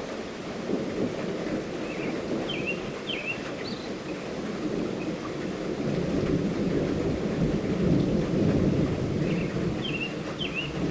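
Steady light rainfall with a low thunder rumble that swells about halfway through and peaks a couple of seconds later. A bird gives a few short high chirps in the rain.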